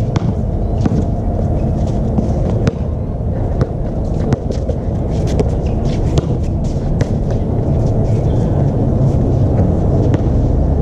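Basketball play on an outdoor hard court: a steady low rumble on the microphone, with scattered sharp knocks of the ball bouncing and players' feet striking the court.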